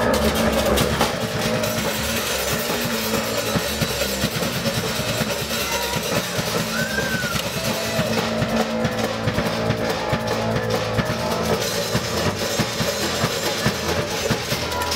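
Loud live rock music with a drum kit and guitar, played by a band of robot musicians.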